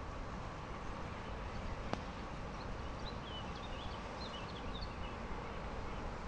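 A small bird chirping a burst of short, high notes around the middle, over a steady low rumbling background noise; a single sharp click about a third of the way in.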